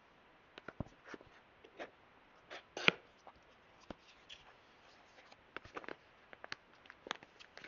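Packaging and small plastic parts being handled during an unboxing: a scatter of small clicks, taps and short rustles, with the loudest sharp click about three seconds in.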